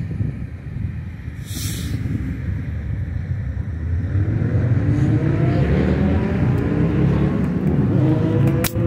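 A car's engine accelerating across a railroad crossing, its pitch climbing over the last few seconds, over a steady low rumble. A sharp click comes near the end.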